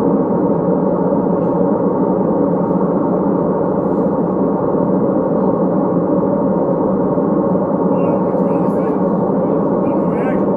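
A loud, steady, unchanging drone with no beat, and faint voice-like sounds near the end.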